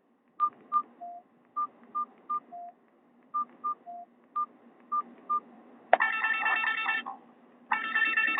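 Nokia 216 key tones: about a dozen short single beeps, most at one higher pitch with a few lower ones. About six seconds in, a Nokia 5730 XpressMusic ringtone starts playing through the phone's loudspeaker in loud bursts with short gaps between them.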